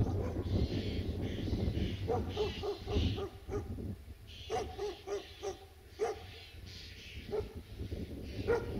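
Dog barking in quick runs of short barks, about two seconds in, again around the middle and once more near the end, with wind rumbling on the microphone.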